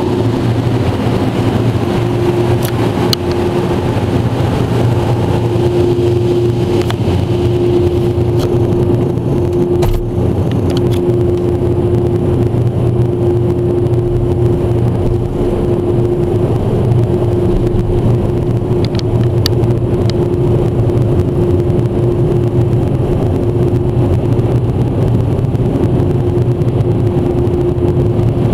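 Ryko Softgloss Maxx rollover car wash's dryer blowers running, heard from inside the car: a steady rush of air with a constant whine.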